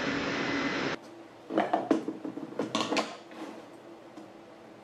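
Table saw running, cut off abruptly about a second in; then a string of light knocks, clicks and creaks as a wooden block is handled and set down on the saw's metal table.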